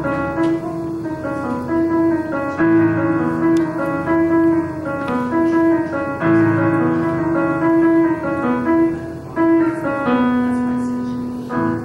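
Portable electronic keyboard played with a piano sound: a melody over repeating chords, ending on a long held note near the end.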